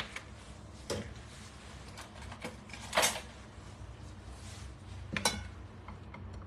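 A few separate knocks and clatters of kitchen utensils and containers being handled on a counter, the loudest about three seconds in.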